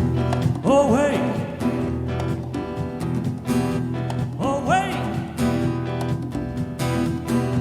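Instrumental band music: steady held chords under a sliding, bending melody phrase that comes in about a second in and again around five seconds in.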